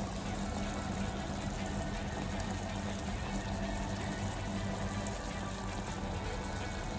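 Chicken simmering in a sauce being reduced over medium heat in a stainless steel pot: a steady bubbling and crackling, with background music.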